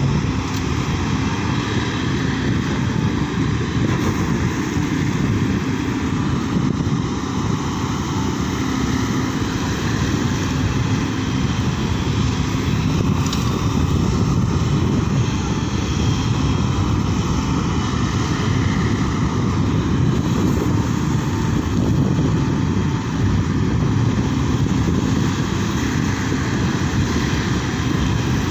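Steady low rumble of a Sany SY140 excavator's diesel engine working, mixed with the rush of flowing river water.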